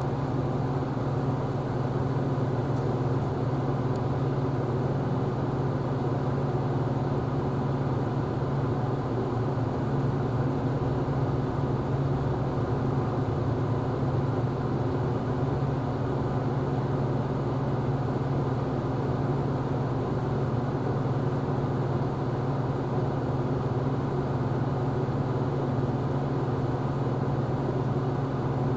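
Isuzu Erga Hybrid city bus heard from inside the cabin, its engine and running noise making a steady, even drone with no change in pitch.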